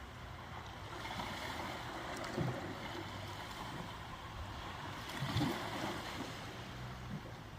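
Ocean waves washing in a steady hiss of moving water, with two louder low thumps about three seconds apart.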